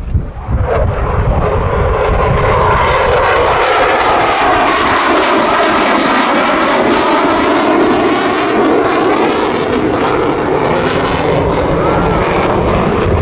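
RAF Eurofighter Typhoon's twin EJ200 turbofan jet engines, loud, as the jet makes a fast run-in pass. The noise swells about a second in and then holds steady, with a shifting, phasing whoosh as the aircraft passes.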